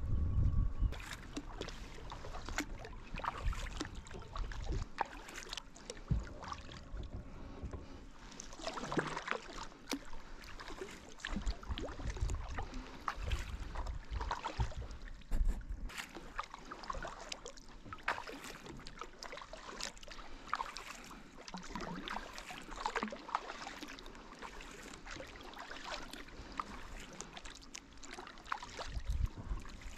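Kayak paddle dipping and pulling through the water, with irregular splashes and drips and water sloshing against the hull. A low rumble of wind or handling on the microphone comes in the first second and again near the end.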